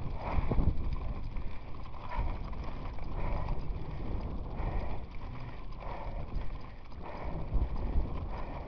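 Mountain bike ridden over a rough trail: continuous rumble with irregular knocking and rattling, and wind buffeting the microphone.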